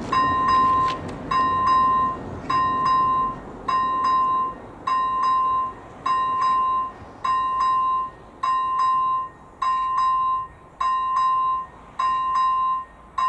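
AŽD 97 level-crossing warning with a ZV-01 electronic bell ringing, a clear bell-like tone struck about once every 1.2 seconds, each stroke ringing on for most of a second. The crossing is still giving its warning after the train has gone by.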